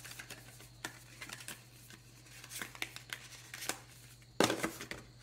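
White cardboard packaging insert being handled and turned over, with light scrapes and clicks of card and a louder rustle about four and a half seconds in. A low steady hum runs underneath.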